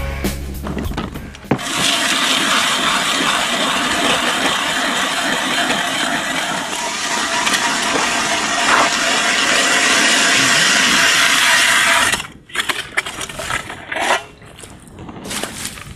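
Ice auger boring through lake ice: a steady rushing, churning noise of slush and water around the turning auger, which stops suddenly about twelve seconds in. After that, a hand-cranked ice auger scraping into the ice in short, uneven strokes.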